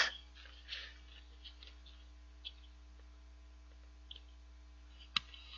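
Steady low electrical hum in a quiet room, with a few faint light ticks and one sharper click about five seconds in.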